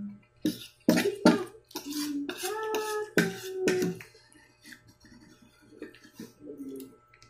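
Eating sounds: a metal fork clinking and scraping on a ceramic plate while twirling noodles, with chewing and other mouth noises. Several sharp clicks come in the first few seconds, with a brief pitched tone about two and a half seconds in, and it grows quieter toward the end.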